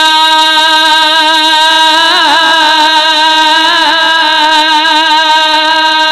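Male naat reciter singing unaccompanied into a microphone, drawing out one long held note that, about two seconds in, turns into a wavering, ornamented melisma.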